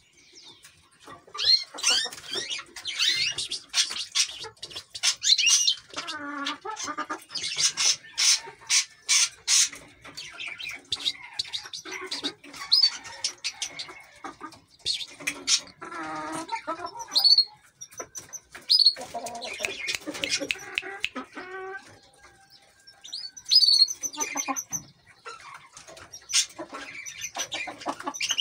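Aviary finches, European goldfinches and canaries, chirping and twittering with rapid high trills, mixed with lower-pitched calls at several points.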